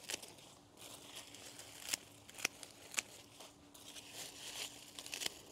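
Dry, crisp hosta leaves rustling, crackling and tearing as gloved hands pull the dead growth out of the plant, with about half a dozen sharp snaps at uneven spacing.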